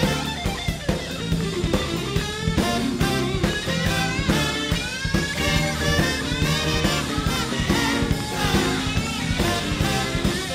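Jazz-fusion band playing live: drum kit, electric guitar, tenor saxophone and marimba, with fast melody lines that slide and bend in pitch over a steady drum groove.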